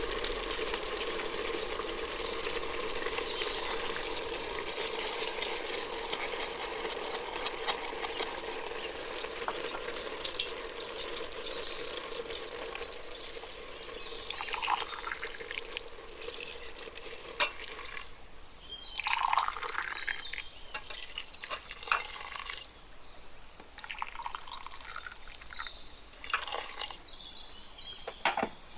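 Chicken, carrots and rice sizzling and crackling in an Instant Pot's stainless steel inner pot as the rice is tipped in, fading over the first half. Then hot water is poured in from a glass in several separate pours, splashing onto the rice.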